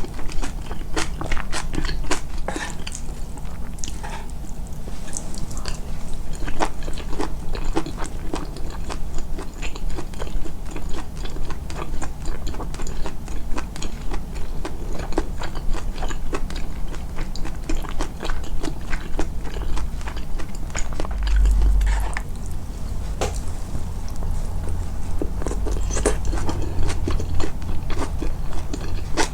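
Close-miked, amplified chewing and biting: dense small wet clicks and crunches of food in the mouth over a deep low rumble of the jaw working, heaviest a little past the middle.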